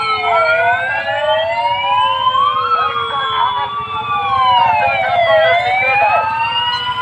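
Several police sirens wailing at once, each sliding slowly up and down in pitch out of step with the others.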